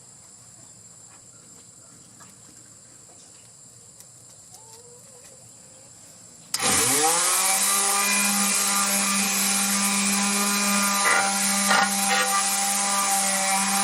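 A few faint handling clicks, then about halfway through an electric mouse sander switches on, quickly spins up to a steady hum and whine, and runs with a loud rough hiss. The hiss is its 120-grit paper sanding the textured steel cooking surface of a griddle smooth.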